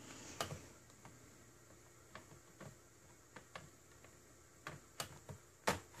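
Scattered light clicks and taps of a metal hard-drive caddy being pushed back into the drive bay of a Dell Inspiron 1525 laptop, with two sharper clicks about five seconds in.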